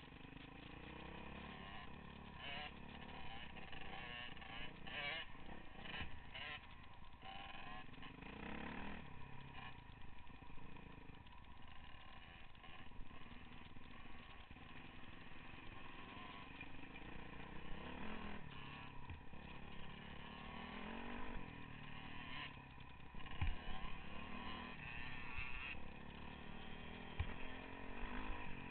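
Dirt bike engine running under way, its revs rising and falling as the rider works the throttle on a rough trail. There are a couple of sharp knocks near the end.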